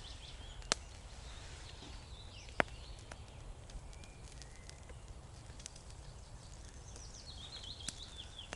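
Campfire coals crackling with a few sharp pops, the loudest about a second in and again about two and a half seconds in. A small songbird twitters at the start, briefly in the middle and again near the end.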